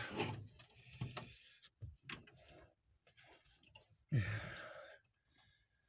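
Handling noise while working under a car's dashboard: a few light clicks and faint rustling, then a short sigh about four seconds in.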